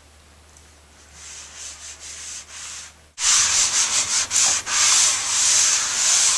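A damp dishcloth rubbing back and forth over an acrylic-coated, wipeable tablecloth, soaking up spilled red wine. It is faint at first, then from about three seconds in it becomes a loud, close scraping hiss broken by quick strokes.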